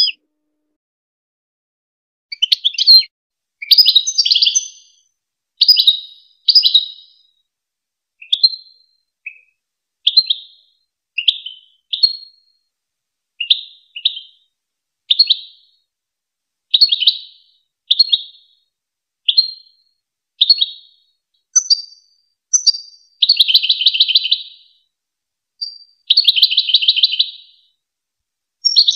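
European goldfinch singing: short bright twittering phrases about once a second, then longer rapid rattling trills in the second half.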